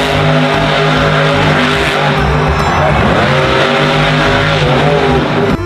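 Monster truck's supercharged V8 engine running at high revs, its pitch dipping and rising partway through.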